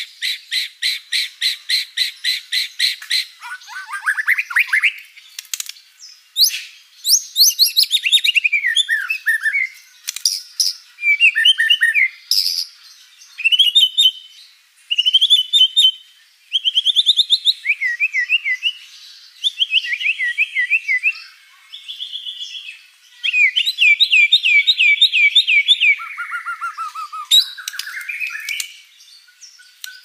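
White-rumped shama (murai batu) singing a long, varied song. It opens with a fast run of evenly repeated notes, then sings one different phrase after another, whistles, trills and rattles with short pauses between them. This is the full, many-phrased song with borrowed phrases (isian) that keepers prize in a bird in top singing form (gacor).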